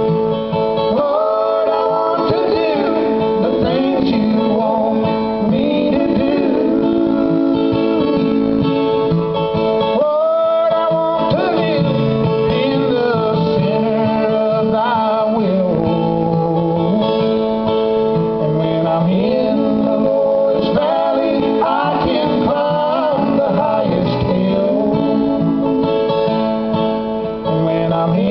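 Live bluegrass gospel song: a man sings long held notes to an acoustic guitar strummed as accompaniment.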